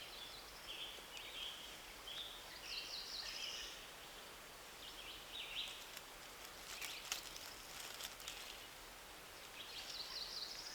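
Songbirds singing in woodland: short, high, quick-noted phrases repeating every second or so, with a few faint clicks about two-thirds of the way through.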